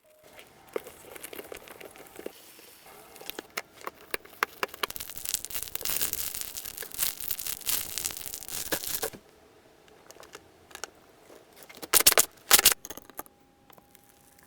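Slime being squished and stretched by hand, with dense crackling and clicking for several seconds, a quieter pause, then a short burst of loud crackles near the end.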